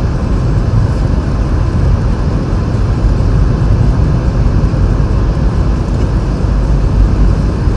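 Car cabin noise while driving on a snow-covered road: a steady low rumble of the tyres rolling through snow, with an even hiss above it.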